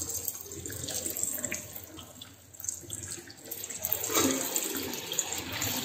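Strips of yu char kueh dough deep-frying in hot oil in a wok: a steady sizzle with fine crackling. It grows louder about four seconds in, as another stretched strip of dough goes into the oil.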